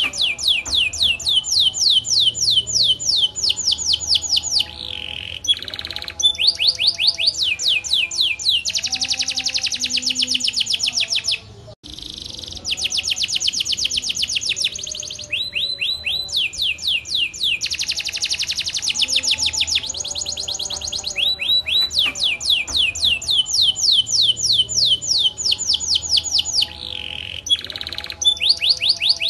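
Domestic canary singing a long continuous song of fast, high-pitched rolls and trills, one train running into the next, with a brief break about twelve seconds in.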